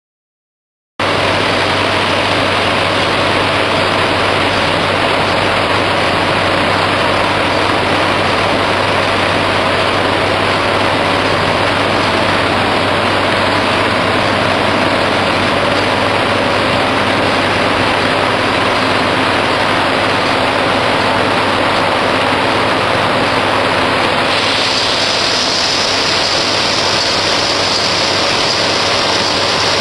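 ECH Will paper sheeter running: a loud, steady machine noise from the paper web moving through the rotary slitter heads, with a faint steady hum under it. It cuts in abruptly about a second in, and grows hissier about 24 seconds in.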